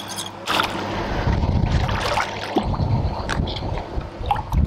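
Water splashing as a hooked carp thrashes at the surface while being drawn towards the landing net, under wind buffeting the microphone.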